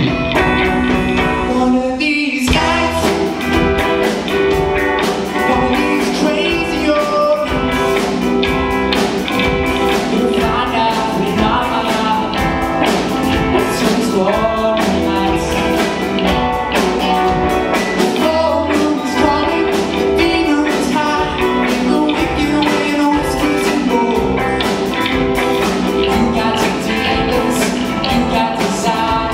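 A live rock band playing: electric guitars, bass and drum kit, with a lead singer. There is a short break about two seconds in, then the full band plays on.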